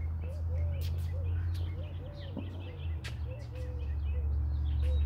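Birds calling outdoors: a run of short, low, repeated arched notes with scattered higher chirps, over a steady low rumble and a few sharp clicks.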